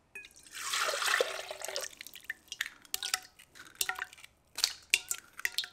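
Melted butter pouring from a bowl into a stainless steel stand-mixer bowl, splashing for about a second and a half. It is followed by a run of sharp taps with a short metallic ring as eggs are cracked against the steel bowl.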